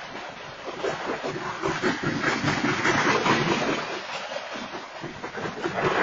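Freight train hopper cars rolling past: a continuous roar of steel wheels on rail that swells and fades in loudness.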